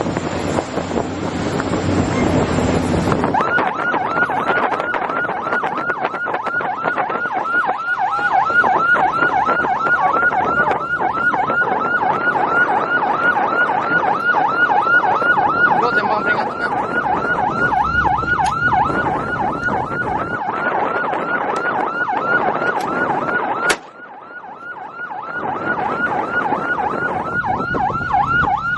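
Patrol boat's electronic siren sounding a fast yelp, about four rising-and-falling sweeps a second, over wind and engine noise. It starts a few seconds in and cuts out briefly near the end before starting again.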